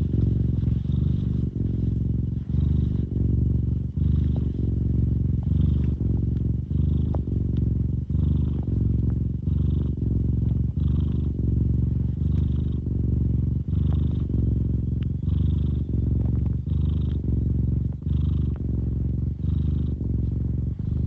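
Domestic cat purring, a deep, steady purr with strong bass, broken by a short dip every second and a half or so.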